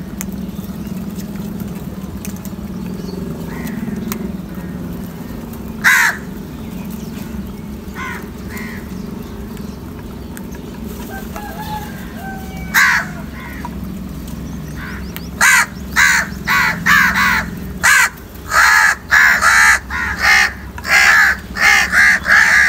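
House crows cawing over a steady low hum. There is a single loud caw about six seconds in and another about thirteen seconds in, then from about fifteen seconds a rapid run of many loud caws in quick succession.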